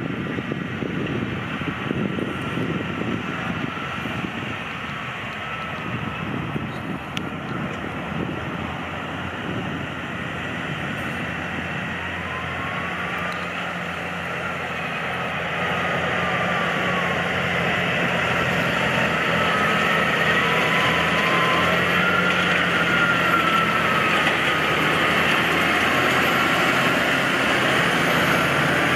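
New Holland tractor engine running while pulling a forage wagon through cut grass, growing louder about halfway through and holding there, with a whine that rises and falls in pitch. Wind on the microphone in the first several seconds.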